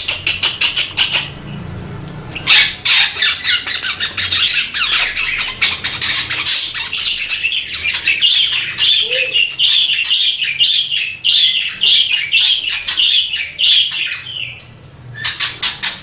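Budgerigar warbling: a short burst of rapid chirps, a pause of about a second, then a long unbroken run of fast chirps, clicks and squawks lasting about twelve seconds, and another short burst near the end.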